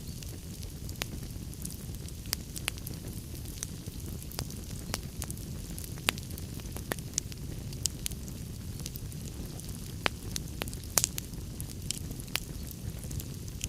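Log fire burning in a fireplace: a steady low rumble of flames with frequent sharp crackles and pops of burning wood, a few louder snaps about eleven seconds in.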